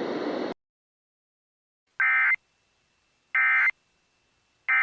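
Steady hiss that cuts off about half a second in, then short identical bursts of digital data tone about 1.3 seconds apart: two full bursts and the start of a third near the end. These are the EAS end-of-message (EOM) data bursts that close an emergency alert broadcast.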